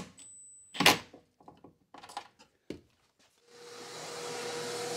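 A cordless drill gives short bursts driving self-tapping screws into the inverter's back panel, followed by a few clicks and a knock. About three and a half seconds in, a vacuum cleaner switches on and runs up to a steady hum.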